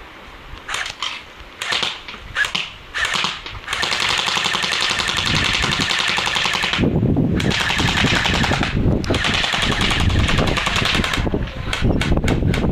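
G36 airsoft electric rifle firing: a few single shots, then two long full-auto bursts of about three and four seconds with a short break between, then a few more quick shots near the end.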